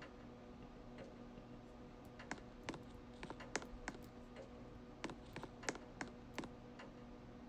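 Ceiling fan running with a steady low motor hum, and irregular light clicks and ticks over it.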